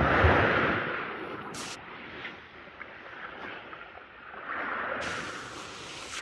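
Sea surf washing onto the beach, swelling loud in the first second, easing off, then swelling again about two-thirds of the way through.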